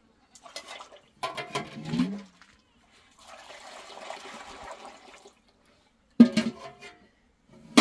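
Milk poured from an aluminium pot through a metal funnel into a large metal pot, a steady pour of about two seconds in the middle. Before and after it, metal bowls and pots clink and knock as the milk is scooped and handled, the sharpest knock about six seconds in.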